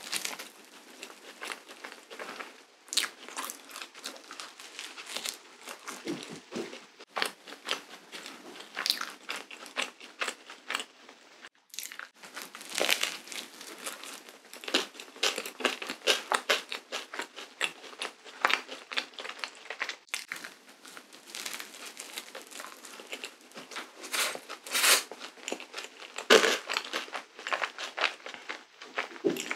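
Close-up eating sounds of a cream-filled waffle: bites into the crisp crust and chewing, heard as a run of irregular crackles and crunches.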